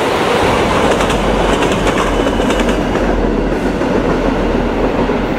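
Passenger train cars rolling past on steel rails with a steady, loud rumble, and a run of wheel clicks over the rail joints about a second in.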